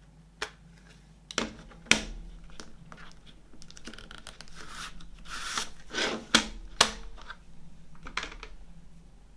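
Packaging being torn open and handled during a CD unboxing: tearing and crinkling with several sharp clicks and snaps, the busiest rustling a little past the middle.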